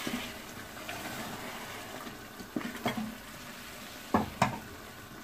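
Wooden spoon stirring a simmering, watery cucumber and dried-fish curry in a pot, which has cooked down in the water the cucumber released. The wet stirring and bubbling run steadily, and the spoon knocks sharply against the pot twice around halfway and twice more near the end.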